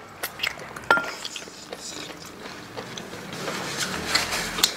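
Close-up eating sounds as pork backbone meat is gnawed off the bone: wet chewing and lip smacking, with scattered small clicks and a light clink of a dish about a second in.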